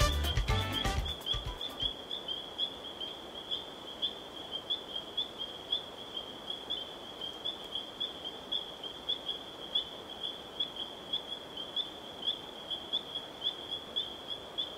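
An animal's continuous high-pitched call, one steady tone pulsing about two or three times a second. Salsa music fades out during the first second.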